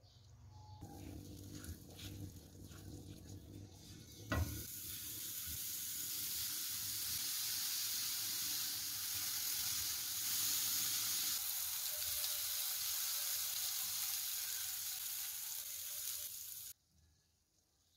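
Skewered chicken kebabs sizzling steadily as they fry in oil in a pan. A sharp clack comes about four seconds in, just as the sizzle starts, and the sizzle cuts off suddenly near the end.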